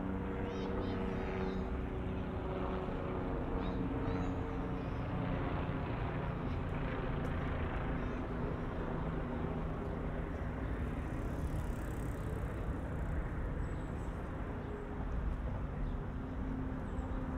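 Steady city traffic ambience with a continuous wash of vehicle noise. A steady engine tone is heard in the first few seconds and again near the end.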